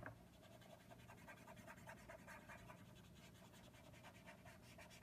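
Faint, rapid scratching of a Copic alcohol marker's brush nib (B01) stroked back and forth on cardstock, a steady run of short strokes as the ink is worked in to soften the edges of the colour.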